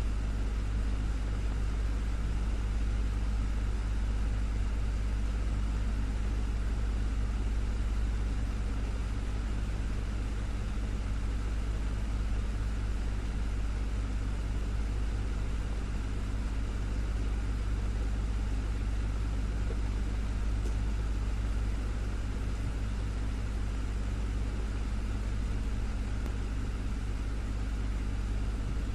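Desktop fan running steadily: a constant motor hum with a low drone and an even whoosh of moving air.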